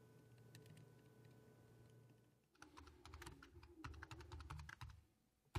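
Faint computer keyboard typing: a quick run of keystrokes starting about halfway through, after near silence.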